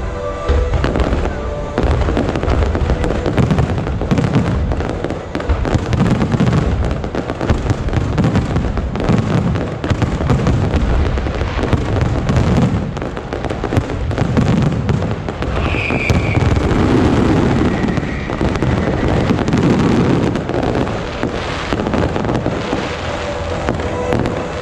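Aerial fireworks shells bursting in a dense rapid barrage, overlapping booms and crackling with no pause, with a short whistle about sixteen seconds in.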